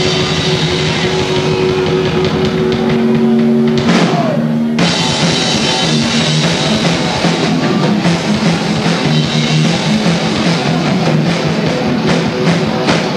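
Live heavy rock band playing an instrumental passage: distorted electric guitar over a full drum kit.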